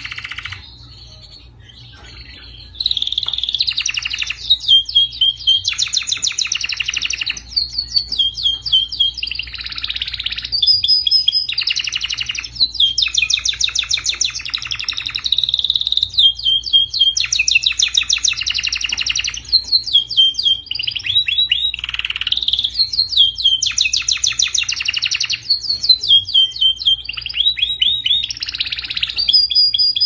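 Domestic canary singing a long, continuous song of rapid trills, switching from one rolled phrase to the next every second or two, with short whistled notes in between. The song starts about three seconds in.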